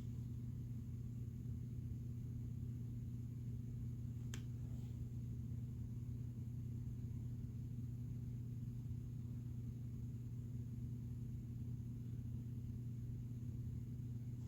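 A steady low hum, with one faint click about four seconds in.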